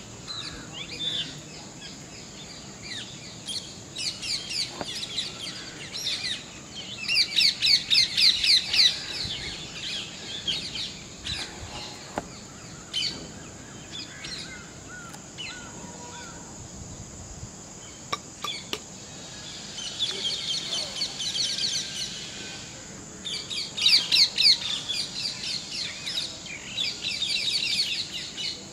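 Birds chirping in quick bursts of rapid, high notes, each burst lasting a second or two and repeating several times, over a steady high-pitched background hum.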